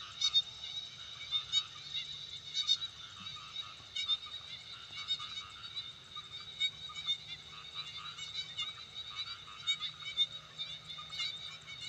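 Rice-paddy chorus of many frogs: short calls repeating and overlapping irregularly over a steady high-pitched drone.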